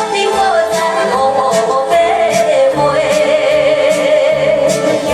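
Minnan (Hokkien) pop ballad: a lead melody line over band backing, holding a long note with vibrato in the second half.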